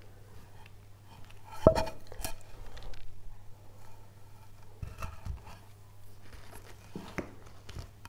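Knocks and clatter of a carved wooden panel and carving tools being handled and shifted on the bench. A sharp knock with a brief ringing comes about two seconds in, then a few softer knocks over the rest, over a faint steady low hum.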